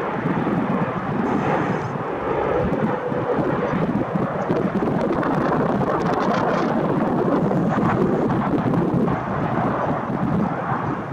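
Jet airliner's engines roaring as it passes, a loud steady roar, mixed with wind buffeting the microphone.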